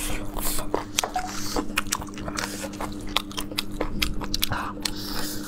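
Close-up biting and chewing of air-fried, crispy spiced chicken drumstick bones: a run of many sharp crunches and clicks, over a faint steady hum.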